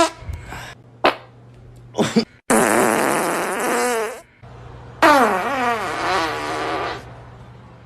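Farts: three short sharp pops, then two long drawn-out farts of about one and a half and two seconds, each wavering in pitch.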